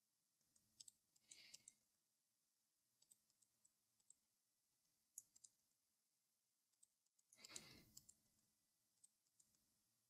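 Near silence with faint, scattered computer mouse and keyboard clicks while vertices are being placed in Blender, and a short soft rush of noise, like a breath, about seven and a half seconds in.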